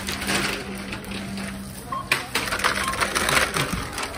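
Thin plastic carrier bag rustling and crinkling as groceries are packed at a supermarket checkout. A low steady motor hum runs for the first three seconds, and a short checkout scanner beep sounds about two seconds in.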